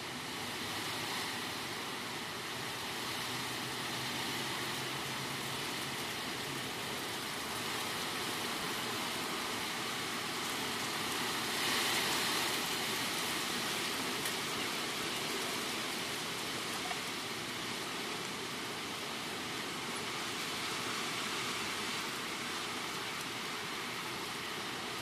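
Hurricane wind blowing through tree leaves: a steady, dense rush that swells in a stronger gust about halfway through.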